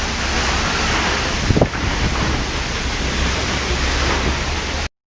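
Steady rush of a waterfall's falling water, with a brief louder bump about one and a half seconds in; the sound cuts off suddenly near the end.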